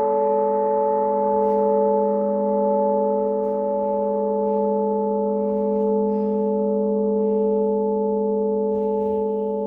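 A steady ringing tone made of several fixed pitches sounding together, held without a break and fading slightly near the end, with a few faint clicks over it.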